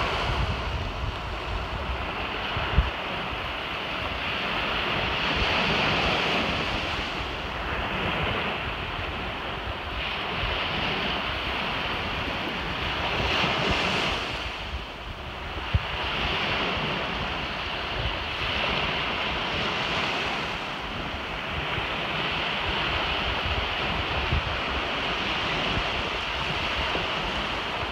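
Small surf breaking and washing up on a sandy beach, swelling and easing every few seconds, with wind rumbling on the microphone. Two brief sharp knocks stand out, one a few seconds in and one about halfway.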